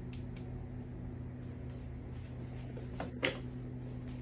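Steady low electrical hum with scattered light clicks and handling knocks. The sharpest knock comes about three seconds in.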